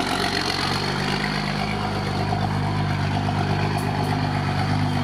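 Mercedes-Benz Unimog's diesel engine running at low revs as the truck creeps past close by, a steady low drone.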